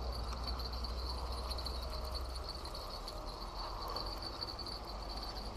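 Insects chirring in the bankside grass: a steady high-pitched trill that pulses finely and does not stop, over a low steady rumble.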